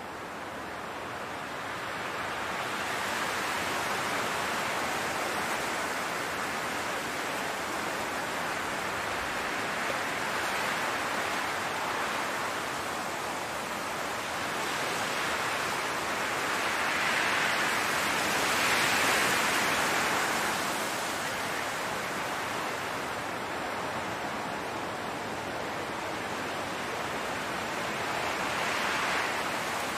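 Wind blowing through a field of flowers and grass: a steady rushing hiss that swells and eases in slow gusts, loudest a little past the middle.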